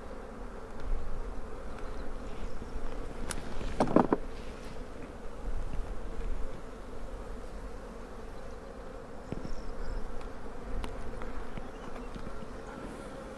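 A colony of honeybees buzzing steadily around an opened hive, with a couple of short clicks about three and four seconds in.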